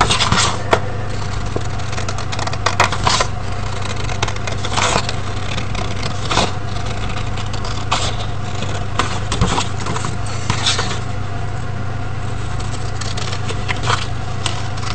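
A sheet of paper being cut out along drawn lines: scattered short crisp cuts and paper rustling over a steady low hum.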